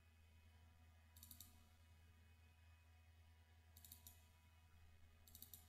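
Faint computer mouse clicks: three quick groups of double-clicks, about a second in, near four seconds and near the end, over a steady low hum.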